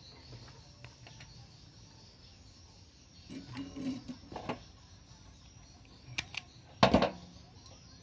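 Handling noises of a bench repair: rustling and light knocks, two sharp clicks just after six seconds, then a short loud clatter near seven seconds, as thin wires and tools are worked by hand.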